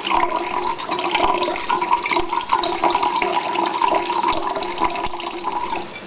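Water poured vigorously into a drinking glass, splashing loudly as it drives large bubbles under the surface; the noise comes from those bubbles being formed. The pouring stops just before the end.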